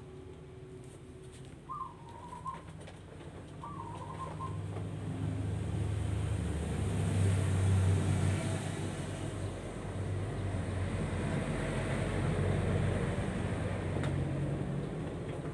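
Two short bird calls about two seconds apart, then the low rumble of a passing motor vehicle that swells over several seconds and slowly fades.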